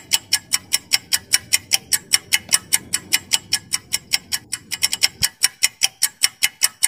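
Countdown-timer sound effect of a clock ticking: sharp, even ticks at about five a second.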